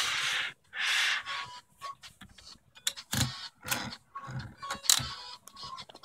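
Princess 300 manual typewriter being typed on: about five separate keystrokes from about three seconds in, each typebar striking the platen with a sharp clack. Two short hissing sounds come before them near the start.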